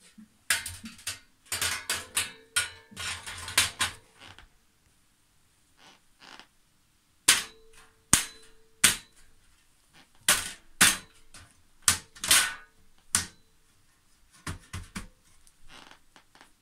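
Perforated metal shelf being knocked and pressed into a tubular metal trolley frame: sharp clanks and knocks, a quick flurry over the first few seconds, then single strikes about every half second to a second, several ringing briefly, and a few fainter knocks near the end.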